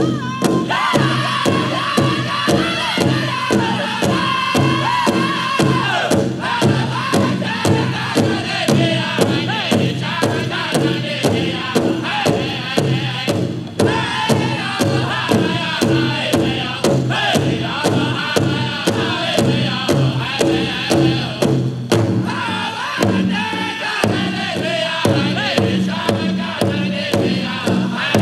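Powwow drum group singing a fancy dance contest song: a chorus of voices chanting with sliding pitches over a steady, evenly spaced beat on the big drum.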